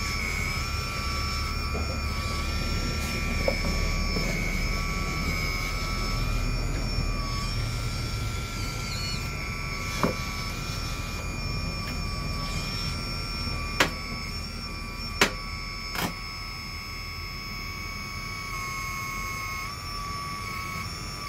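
Hydraulic oil pump of an RC scale excavator running with a steady multi-tone whine that shifts slightly in pitch as the valves work the boom, arm and bucket. Four sharp clicks sound in the second half.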